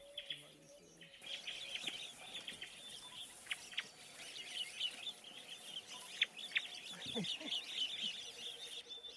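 Birds chirping and calling, many short high chirps, with a brief low call sliding down in pitch about seven seconds in.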